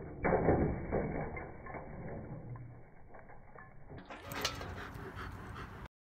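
Stainless steel dog bowl clattering and scraping over the ground as a German Shepherd paws and pushes it, loudest in the first second. About four seconds in, the sound cuts to a different recording with a short loud noise.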